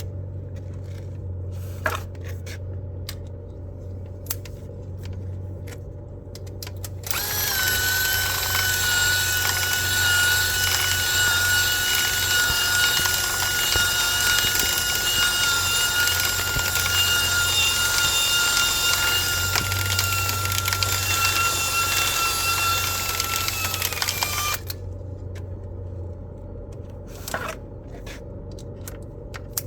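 A power drill motor whining steadily for about seventeen seconds, starting about seven seconds in, its pitch sagging slightly before it cuts off. A low steady hum runs underneath, with a few sharp clicks in the quieter stretches.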